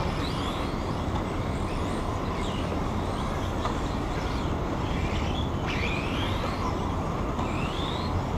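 Radio-controlled model cars' motors whining in short rising and falling bursts as they accelerate and brake around a track, over a steady noisy rumble.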